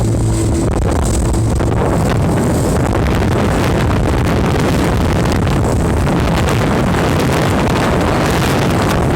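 Speedboat under way: the engine runs steadily while wind buffets the microphone and water rushes past. The engine's tone stands out during the first second, then is mostly covered by the wind and water.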